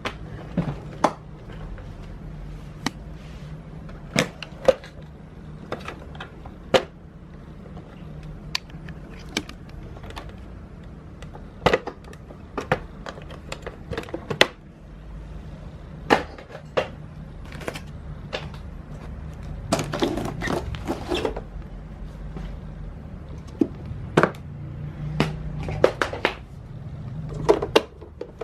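Irregular hard plastic clicks and knocks as Miele S8 canister vacuum cleaner parts are taken apart and refitted, with a short stretch of quick rattling clicks about twenty seconds in.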